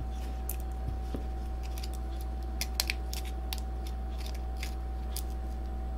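Small, irregular plastic clicks and ticks from handling the tiny parts of an action camera while working a flex ribbon cable into the circuit board's connector, with the sharpest pair of clicks a little under halfway through.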